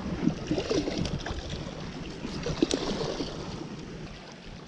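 Wind buffeting the microphone over the wash of sea water.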